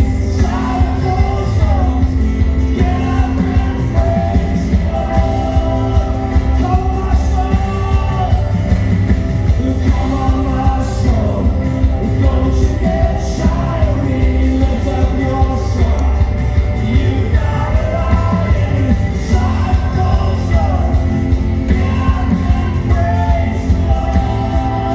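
Worship song: a singing voice over a band with a steady bass and drum beat.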